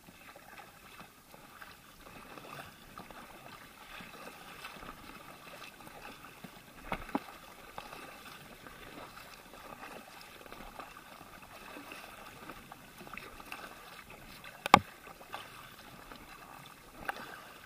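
Double-bladed kayak paddles dipping and splashing in choppy sea water beside an inflatable kayak, in an even wash of water noise. A sharp knock, the loudest sound, comes a little under 15 seconds in, and a fainter one about 7 seconds in.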